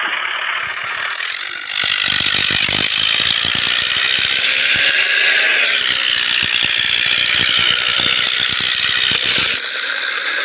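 Plastic toy tractor pushed by hand over stony dirt, its wheels and gears making a fast ratcheting clatter with a high whir above it. The clatter stops near the end while the whir goes on.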